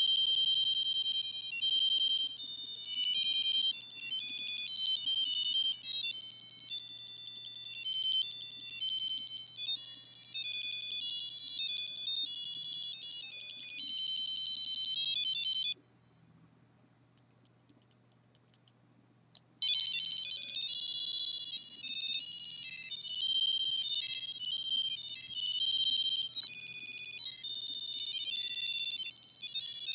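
A micro:bit playing a fast techno-pop pattern as high-pitched electronic beeps in quick note sequences. About 16 s in it breaks off, a run of short ticks follows, and the beeping pattern resumes a few seconds later.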